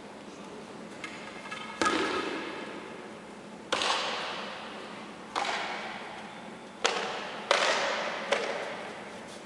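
Six sharp blows land on a karateka's body during a Uechi-ryu conditioning test, his master striking him at irregular intervals, the last three close together. Each blow rings out with a long echo from the hall.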